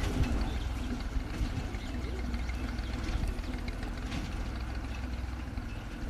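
Tractor engine running steadily as it drives a reaper cutting wheat.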